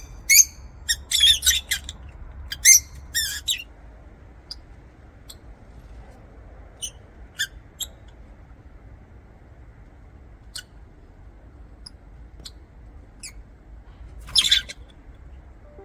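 Lovebirds chirping and squawking. A flurry of shrill calls comes in the first few seconds, followed by scattered single chirps, and another short burst near the end.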